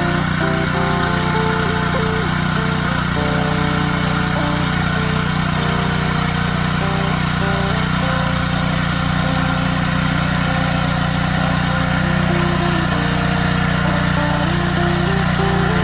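Honda GX160 single-cylinder four-stroke petrol engine of a mini tiller running steadily.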